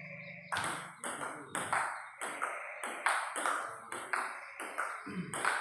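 Table tennis rally: a ping-pong ball clicking off the players' paddles and bouncing on the table, starting about half a second in and going on at roughly three hits a second.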